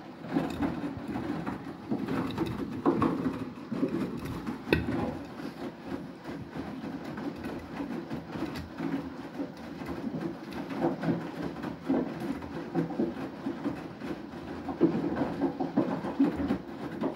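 Beko WTK104121W washing machine drum turning anti-clockwise in the main wash, with the wet clothes tumbling and water sloshing over the steady motor, in irregular swells with an occasional knock.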